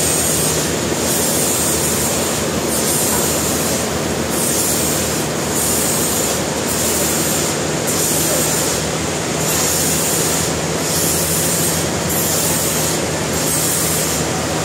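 Sawmill saw running through a log: a loud, steady machine noise with a high squealing hiss that swells and fades about every second and a half.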